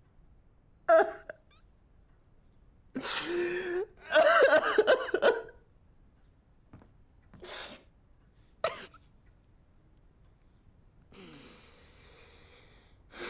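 A person's wordless vocal sounds: a series of short breathy outbursts and gasps. The loudest run comes about four to five seconds in, and a long breath follows near the end.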